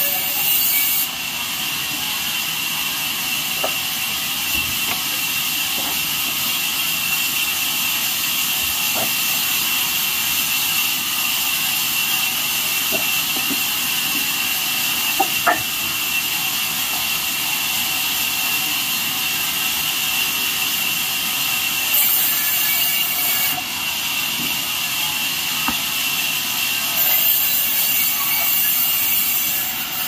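Large vertical band sawmill running with a steady high whine, its blade cutting through a log with louder hissing stretches about two-thirds in and near the end. Occasional small knocks of wood being handled.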